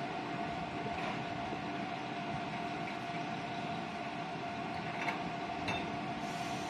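Shimabara Railway diesel railcar idling at a station, a steady engine hum with a constant tone. Two faint clicks about five seconds in.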